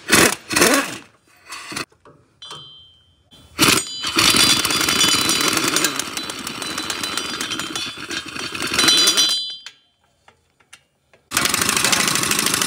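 Cordless impact wrench with a 15 mm swivel socket hammering loose the nuts that hold the exhaust downpipe to the turbochargers. A few clicks as the socket goes on, then one long run of about five seconds and, after a pause, another run near the end.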